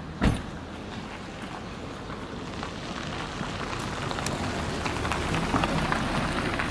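A car's hatchback tailgate shut with one loud thud just after the start, followed by a steady gritty crackle with small clicks that slowly grows a little louder, like footsteps on wet, slushy asphalt.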